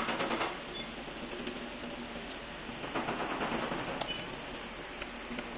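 A rhythmic mechanical rattle that stops about half a second in, then a few separate light clicks and taps of metal parts being handled at a car's radiator and condenser assembly.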